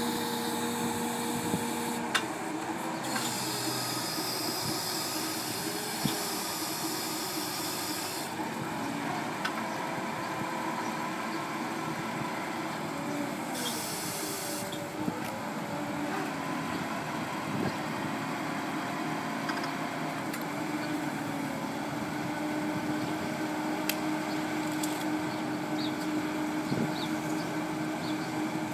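Hyster forklift engine running while its hydraulics work a Cascade rotating clamp: the engine note rises and falls as the clamp is rotated and opened. Two stretches of steady hiss and a few sharp clicks sound over the engine.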